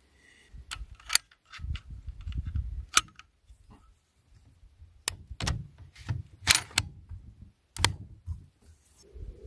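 A string of sharp clicks and knocks, spaced irregularly about a second or two apart, with low rumbling between them: rifle and shooting gear being handled at the shooting table between shots.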